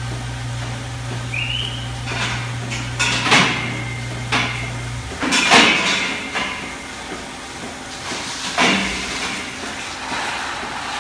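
Milking parlor equipment clanking: several sharp metal knocks and clanks spaced a second or more apart, over a steady low hum that cuts off about five seconds in.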